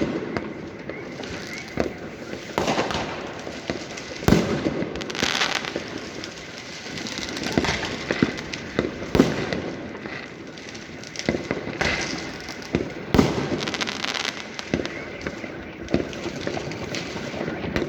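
New Year fireworks and firecrackers going off all around: a continuous crackle with irregular sharp bangs, near and far, several every few seconds.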